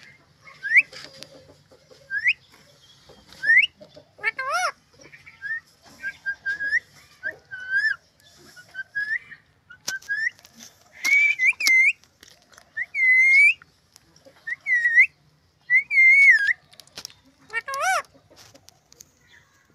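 Parrot whistling: a long series of short rising and wavering whistles with gaps between them, and a couple of harsher, fuller calls.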